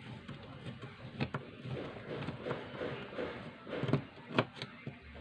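Handling noise: irregular clicks and knocks of hard objects being moved and set down, with two sharper knocks about four seconds in.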